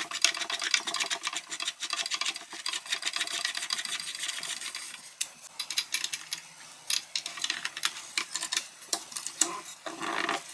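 A screw being turned by hand with a screwdriver into a wooden children's table frame: a quick, continuous run of scratchy clicks and rasping, pausing briefly twice.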